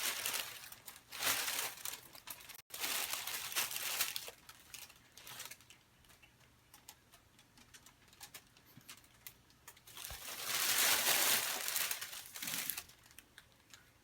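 Crinkling and rustling in irregular bursts, loudest in a long stretch about ten to thirteen seconds in, with faint scattered ticks in the quieter stretches between.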